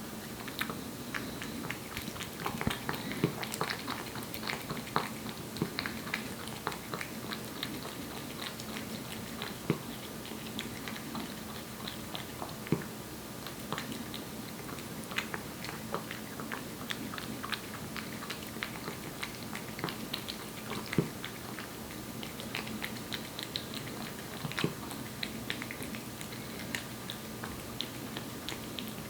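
Korean shorthair cat eating wet cat food: irregular wet smacking and chewing clicks, several a second, over a steady low hum.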